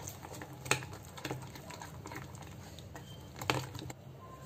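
A metal spoon stirring thick moong dal and semolina batter in a glass bowl, with a few sharp clicks where it knocks the glass. The loudest clicks come under a second in and about three and a half seconds in.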